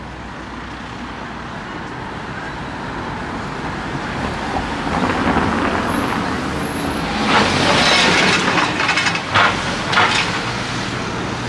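A vehicle approaching and passing close by. Its noise grows over several seconds and is loudest about two-thirds of the way in, with a few sharp rattles at the peak.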